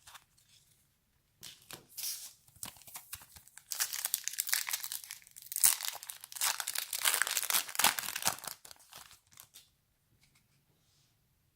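A trading card pack wrapper being torn open and crinkled by hand, starting about a second and a half in and loudest in the middle, stopping a couple of seconds before the end.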